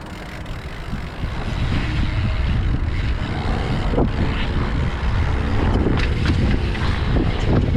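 YT Tues downhill mountain bike riding down a rocky dirt trail: tyres rumbling over the ground and wind buffeting the microphone, growing louder over the first couple of seconds as the bike picks up speed, with scattered clicks and rattles from the bike.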